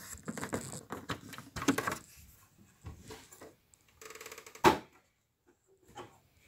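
Handling of a Philips reel-to-reel tape player's case as its lid cover is lifted off: scraping and rubbing with several sharp clicks, then a fast rattle followed by one sharp knock about four and a half seconds in.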